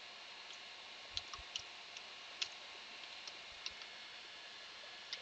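Computer keyboard keys clicking, about ten single irregular strokes with gaps between them, over a faint steady hiss.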